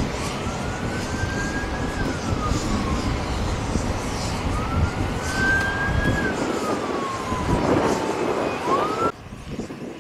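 Emergency vehicle siren wailing, slowly rising and falling about twice over a steady rushing noise. The sound drops off abruptly near the end.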